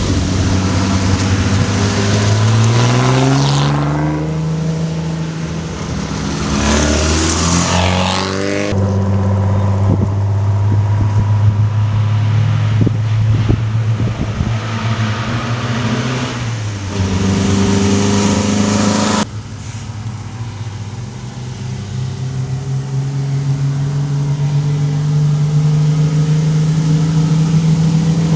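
A car engine running and accelerating, its pitch climbing several times as it pulls through the revs, in short stretches that cut off suddenly from one to the next.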